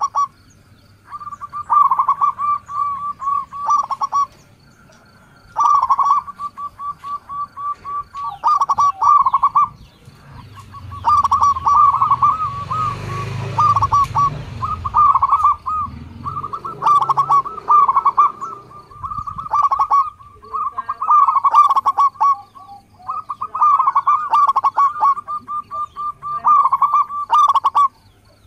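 Zebra dove (local perkutut) cooing: phrase after phrase of rapid staccato coos, each about one to two seconds long, with short pauses between them. The phrases come thick and overlapping through the middle. A low rumble sits under them for a few seconds near the middle.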